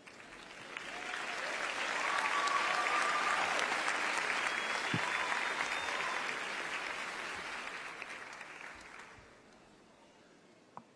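Large theatre audience applauding, building over the first two seconds and dying away by about nine seconds in.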